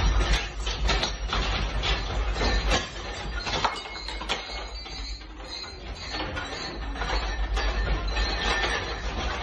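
Irregular clicks and rattles over a low rumble as an apartment shakes in an earthquake. The rumble is heaviest for the first three seconds, then eases.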